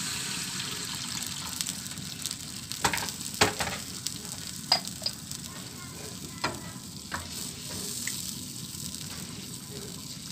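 Sauce of oil, tomato paste and pounded garlic sizzling in a non-stick frying pan, with water just poured in, while a wooden spoon stirs it. Several sharp knocks of the spoon against the pan come in the middle.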